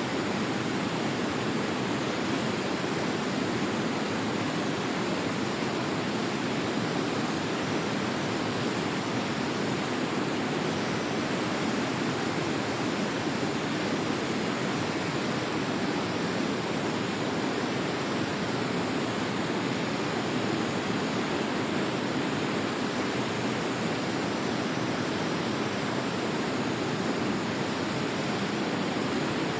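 Waterfall: water falling and rushing in a steady, unchanging deep roar.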